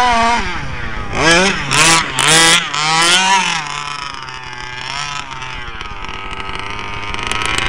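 FG large-scale RC truck's 27cc two-stroke gas engine with a tuned pipe, revved up and down in several quick throttle bursts, then running more steadily at lower revs for the second half.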